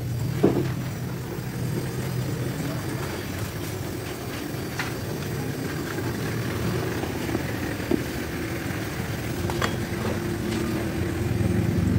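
A steady machine hum with a few short sharp clicks.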